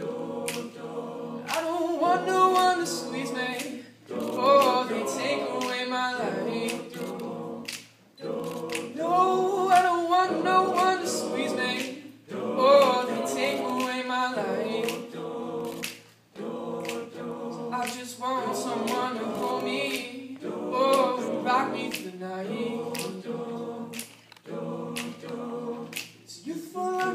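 A cappella vocal group singing in harmony, in phrases about four seconds long, over a beat of sharp percussive clicks.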